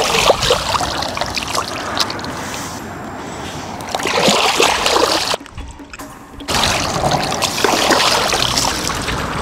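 Water splashing and sloshing as fish are rinsed and scrubbed by hand in shallow river water, in irregular splashes, with a brief quieter break a little past halfway.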